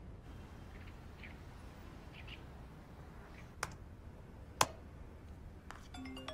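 Scattered laptop keystrokes clicking over faint room tone, with two sharper clicks about a second apart midway. Tinkling mallet-percussion music notes come in right at the end.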